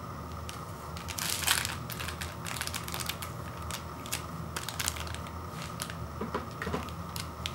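Foil seasoning sachets crinkling and crackling in the hands as they are worked apart, in irregular bursts, the loudest about a second and a half in.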